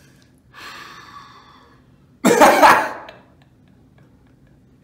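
Laughter: a soft breathy laugh, then a short loud burst of laughter a little over two seconds in.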